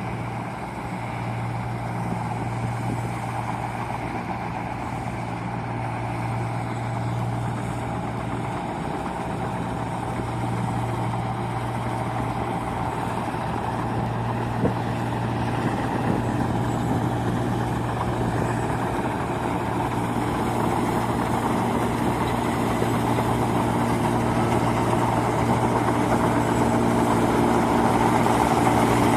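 New Holland Clayson 8060 combine harvester's diesel engine running steadily with a low, even hum, getting gradually louder toward the end.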